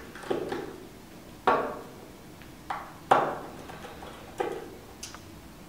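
About six small, sharp clicks and taps, each with a brief ring, from a screwdriver and tiny screws being worked out of an iPhone 4S's ribbon cover bracket.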